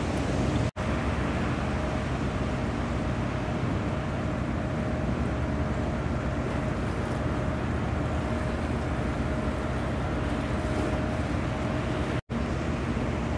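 Steady low machinery hum with a faint high steady whine, the running noise of moored warships' onboard machinery. The sound cuts out for an instant twice, near the start and near the end.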